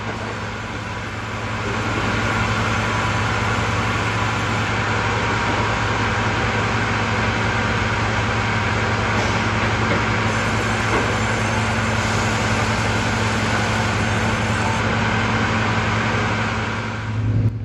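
Twin-band runaround resaw running through cants, a steady loud machine noise over a low hum. It grows louder about two seconds in and eases off near the end.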